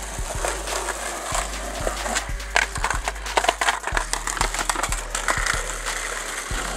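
Skateboards on asphalt: wheels rolling and a series of sharp, irregular clacks as boards are popped, flip and land or hit the ground.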